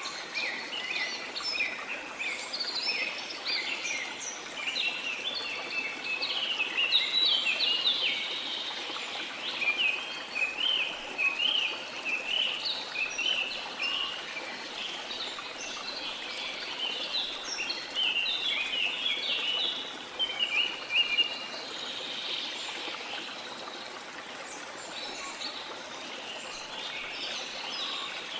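Many birds chirping and singing in quick, overlapping phrases, busiest in the middle and thinning out near the end, over a steady rush of falling water.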